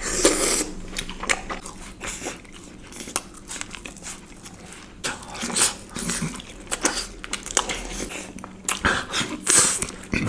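Close-miked eating sounds: irregular bites, chewing and wet mouth smacks, with scattered clicks.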